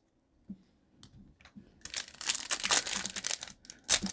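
Foil wrapper of a 2022 Bowman Draft trading-card pack crinkling and tearing as it is pulled open by hand, starting about two seconds in after a few faint clicks.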